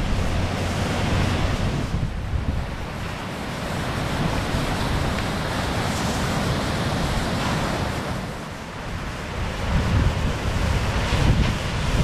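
Ocean surf breaking and washing in, a steady rushing hiss, with wind buffeting the microphone in low gusts.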